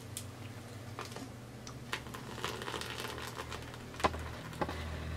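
Faint pouring of blended flan mixture into a baking dish, with a few light clicks and a low steady hum underneath.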